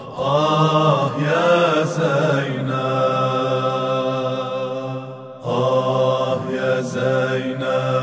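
Male voices chanting a Shia latmiyya lament in long held notes with wavering pitch; the line breaks off briefly about five seconds in and then starts again.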